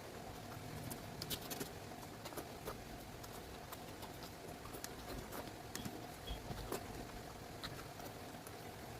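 Close-up eating sounds: irregular wet clicks and smacks of chewing, with a faint steady hum underneath.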